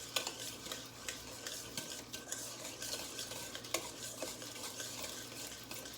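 A whisk stirring dressing ingredients in a bowl, with frequent irregular clicks of the whisk against the bowl's sides.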